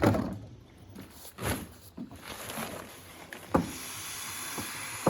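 Handling noises from pitching camp gear: a few separate knocks and thumps, the sharpest about three and a half seconds in, then a steady hiss.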